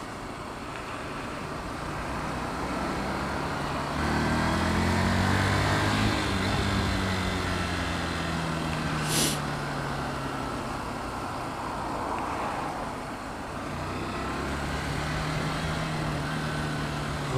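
Motorcycle engine heard from the rider's seat over steady wind and road noise on a helmet camera, filtering slowly between queued cars. The engine note swells about four seconds in, then falls and rises again with the throttle; a brief high hiss comes about nine seconds in.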